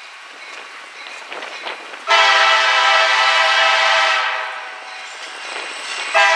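Buckingham Branch GP40-series diesel locomotive blowing its horn as it approaches: one long blast of several notes at once, lasting about two seconds and fading away, then a second blast starting just before the end. A low train rumble runs underneath before the first blast.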